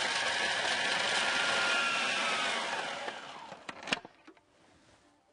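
Food processor motor running with its chopping blade, mincing garlic cloves and pine nuts. It runs steadily for about three seconds, then is switched off and winds down, with a sharp click about four seconds in.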